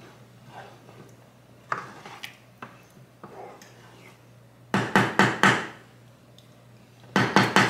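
Wooden spoon stirring in a metal pot of soup, mostly quiet with a few light clicks, then a quick run of loud clatters of the spoon against the pot about five seconds in and a few more near the end.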